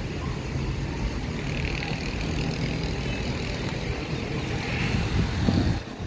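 Steady outdoor rumble with no voices, swelling louder briefly near the end.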